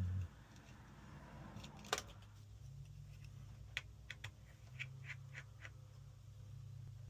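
Small sharp clicks and taps of tools and small parts during iPhone disassembly: one louder click about two seconds in, then a quick cluster of lighter clicks between about four and six seconds. A faint low steady tone runs underneath.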